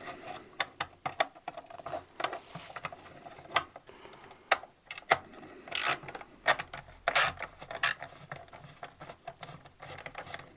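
Irregular clicks, taps and short scrapes of a screwdriver being set against and worked on the screws holding the mirror and indicator in a motorcycle's plastic fairing.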